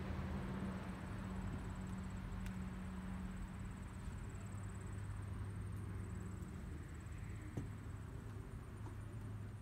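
Outdoor background sound: a steady low hum under a soft hiss, with a faint high-pitched chirring that comes and goes, and one small click late on.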